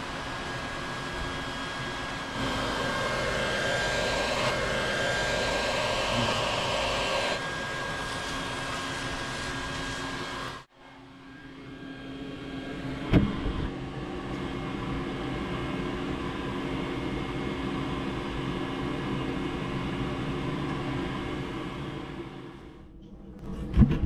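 Dense, steady buzzing of a large honeybee colony clustered on its comb close to the microphone. The hum drops out for a moment about eleven seconds in, then carries on.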